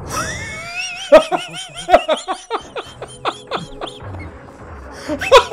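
A man laughing hard: a rising squeal at the start, then a quick run of short bursts of laughter, a lull, and a fresh burst near the end.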